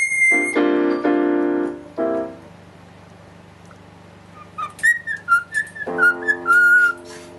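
Cockatiel whistling a tune in short rising and falling notes. Keyboard chords sound twice: one for about two seconds just after the start, and another held under the bird's whistling near the end, with a quieter gap between.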